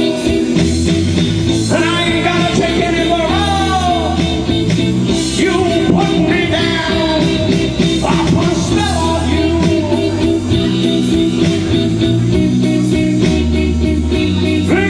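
Man singing through a handheld microphone over amplified instrumental backing music, with gliding, held vocal notes over a steady bass line.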